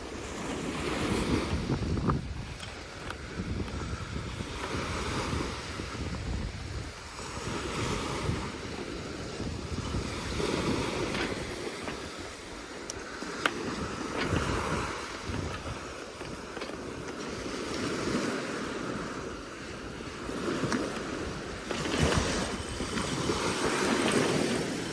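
Surf washing onto a beach, the noise swelling and ebbing every few seconds, with wind buffeting the microphone.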